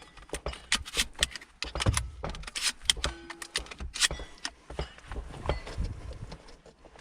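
A run of irregular clicks, knocks and light rattles, with a brief low tone about three seconds in.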